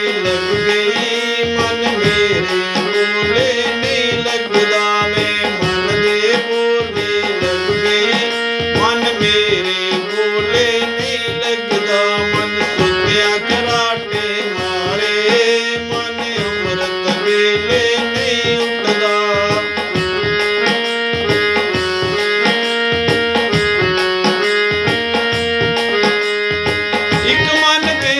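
Instrumental interlude of a devotional bhajan: tabla keeping a steady rhythm under a repeating melody line.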